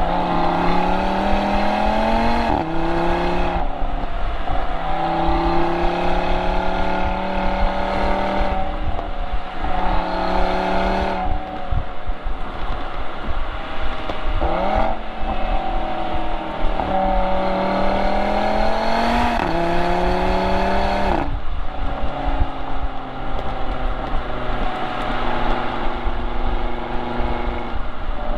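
Audi RS3's turbocharged five-cylinder engine and exhaust under hard driving, heard from just behind the tailpipes. The note climbs in pitch and drops sharply several times as the car accelerates and shifts or lifts off, then holds a steadier, lower note for the last several seconds.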